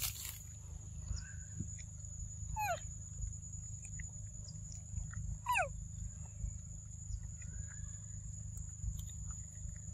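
Steady high-pitched insect drone over a low rumble, with two short calls sliding down in pitch about three seconds apart.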